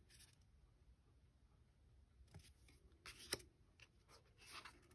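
Faint handling of tarot cards: a few soft taps of card against card as they are picked up and laid down, one sharper tap past the middle, then a soft sliding rustle of a card on the cloth near the end.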